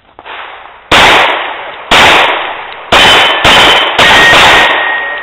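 Five 9mm shots from a Glock 19 pistol, about a second apart, the last three quicker, with steel targets clanging and one plate ringing on after the final hit.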